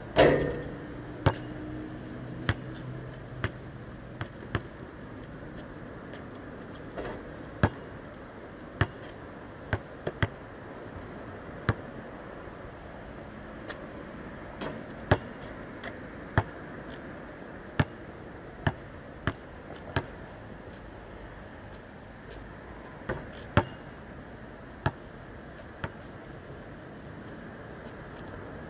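Basketball hitting the hoop and bouncing on an outdoor asphalt court. A loud bang on the hoop just after the start rings on for about two seconds, then single sharp knocks of the ball come every second or two over a steady outdoor hiss.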